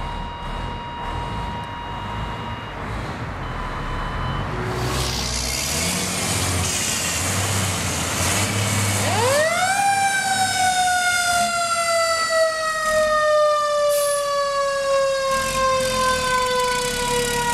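Tanker 3's siren on the passing 2005 Mack Granite fire tanker, winding up quickly about halfway through and then slowly falling in pitch, over the noise of the truck's diesel engine as it drives past.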